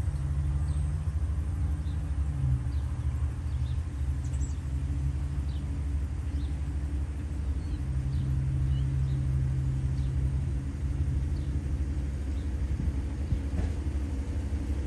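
A vehicle engine running: a steady low rumble with a hum that swells a little now and then.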